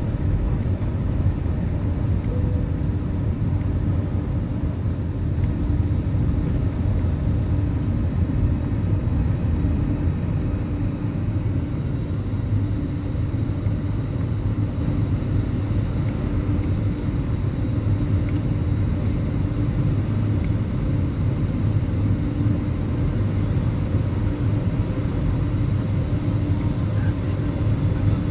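Cabin noise of an Airbus A320-family jet airliner climbing after takeoff: steady jet engine and airflow noise, heavy in the low end, with a faint steady hum.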